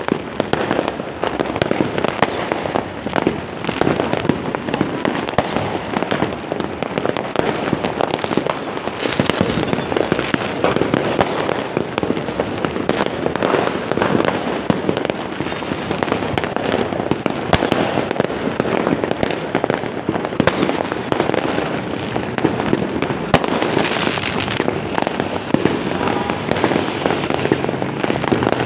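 Fireworks going off in a dense, continuous barrage: many overlapping bangs and crackles with no pause.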